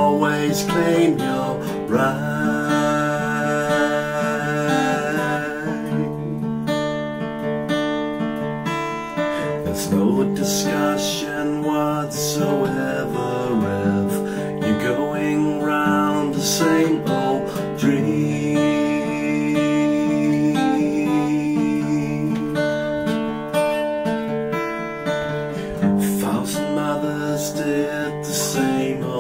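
Acoustic guitar strummed steadily, accompanying a man's singing voice.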